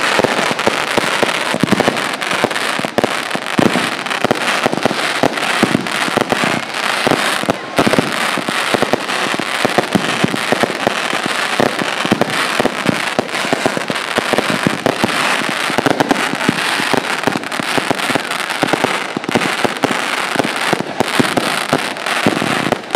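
Testosteron firework cake (battery) firing: a dense, unbroken stream of rapid shots and crackling bangs.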